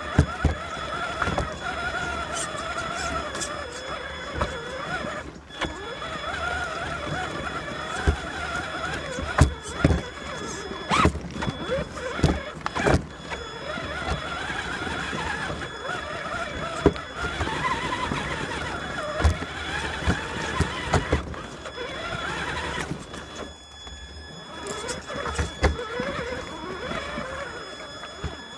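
Traxxas Summit RC truck's electric motor and gearbox whining up and down in pitch with the throttle, heard close from a camera on the truck, with frequent sharp knocks and clatters as it crawls over rocks and rubble.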